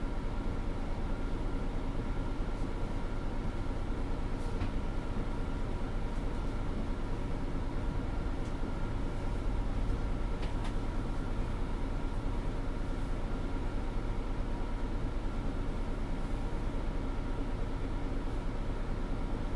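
Mercedes-Benz Citaro G articulated bus with a ZF Ecolife automatic gearbox: a steady engine and drivetrain hum, heard inside the passenger cabin, with a couple of faint rattles.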